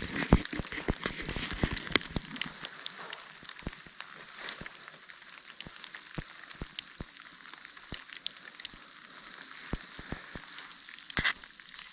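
Falling snow ticking and pattering irregularly over a soft hiss, denser in the first couple of seconds.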